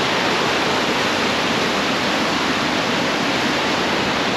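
Water rushing over a low river weir: a steady, unbroken rush of white water.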